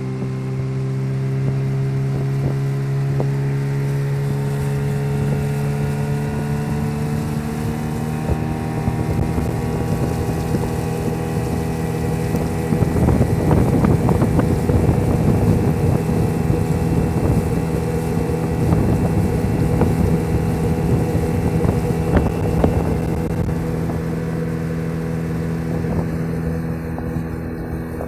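Small motorboat's engine running steadily, its note creeping up slowly over the first ten seconds or so and then holding. A rougher rushing noise lies over it for about ten seconds in the middle.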